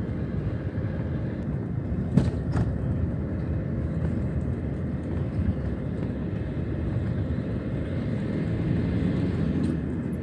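Steady rumble of a moving vehicle's engine and tyres on the road, with one sharp knock about two seconds in.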